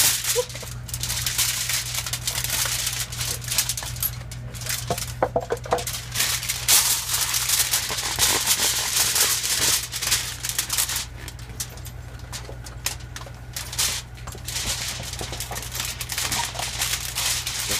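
Aluminum foil crinkling and crackling as it is folded and pressed by hand, busiest in the first ten seconds or so and thinner after. A steady low hum runs underneath.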